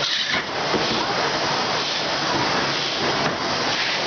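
Rotary cooking-oil filling and capping machine running: a steady, dense hiss with many small clicks and clatters.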